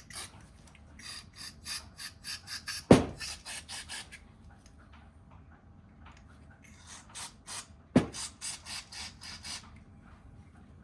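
Repeated hand-tool scraping or filing strokes, about three to four a second, in two runs. A single sharp, loud knock stands out in each run.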